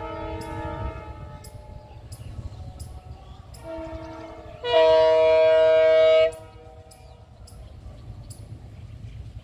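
EMD WDP4D diesel locomotive's multi-tone horn: a chord that fades out about a second in, a shorter, softer blast around four seconds in, then a loud blast of about a second and a half. Under it runs the low rumble of the locomotive's diesel engine, working hard at high notch up a gradient.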